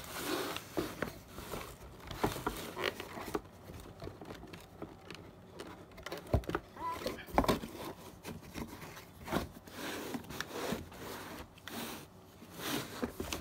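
Packaging handling noise: rustling plastic and cardboard with scattered light knocks, as a boxed refrigerant manifold gauge set is moved and its box lid is closed.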